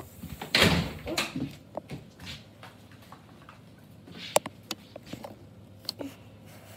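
Handling noise from a handheld camera being carried about: rustles and scattered knocks and clicks. The rustling is strongest in the first second and a half, with a sharp click about four seconds in.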